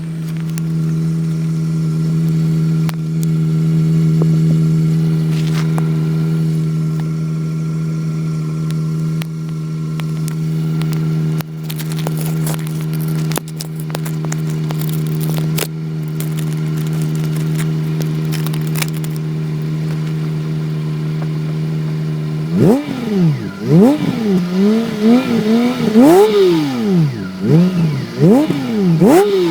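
Honda Pilot's 3.5-litre V6 exhaust: the engine runs at a steady speed, then from about 22 seconds in it is revved up and down in quick repeated blips.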